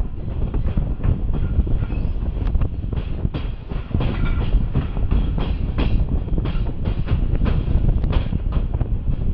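Passenger train in motion heard from a camera on the outside of the carriage: a steady low rumble with irregular clicks of the wheels over rail joints and points.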